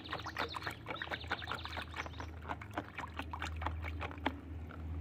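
A hand sloshing and splashing in a plastic tub of muddy water, rinsing plastic toy dinosaurs: a quick run of small splashes that dies away near the end.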